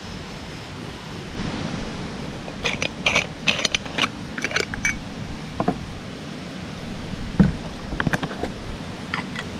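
A stovetop moka pot being handled: from about three seconds in, a run of light metallic clinks and taps as it is unscrewed and its parts are set down on the wooden deck, with one heavier knock about seven seconds in. Under it, the steady rush of a stream.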